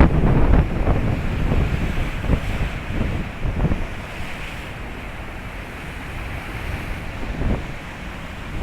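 Strong, gusty wind buffeting the microphone over a steady rush of surf; the gusts ease after about four seconds.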